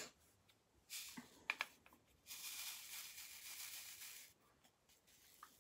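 Diamond painting supplies being handled: a short rustle about a second in, a few sharp clicks, then a steady rustle lasting about two seconds.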